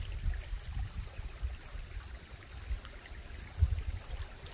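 River water running, a faint steady wash, over an uneven low rumble that swells briefly about three and a half seconds in.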